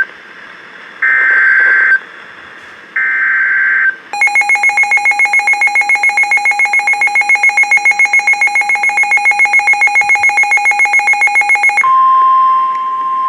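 Emergency Alert System weather radio alert tones: two one-second bursts of screeching digital SAME header data, then about eight seconds of rapidly pulsing electronic alarm beeps, and near the end the steady single-pitch weather radio warning alarm tone starts.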